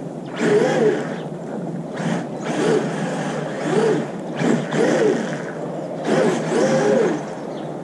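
Electric motor of a Traxxas Maxx RC monster truck whining up and down in pitch with repeated bursts of throttle, about one a second, over a steady hiss.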